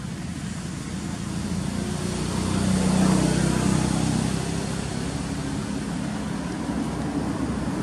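A motor vehicle passing, its engine rising to a peak about three seconds in and then fading away.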